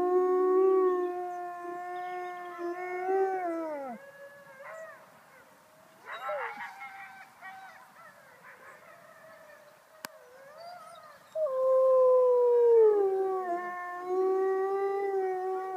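A female wolf howling: one long steady howl that drops in pitch and fades about four seconds in, then after a pause a second howl that starts higher, slides down and holds steady. The handler takes the howling as the wolf calling to her sister.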